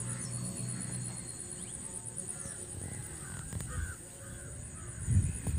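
Crows cawing in the background, a few short calls in the middle, over a steady high-pitched whine. A low rumble comes in near the end.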